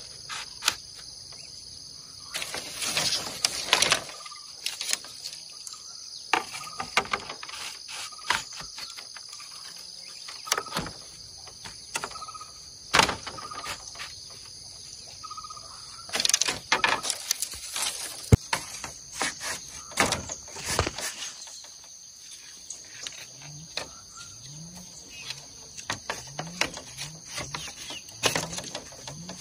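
Bamboo poles and split slats clacking, knocking and rustling as a fence is tied and fitted together by hand, in irregular clatters. A steady high drone of insects runs underneath, with a few short bird chirps.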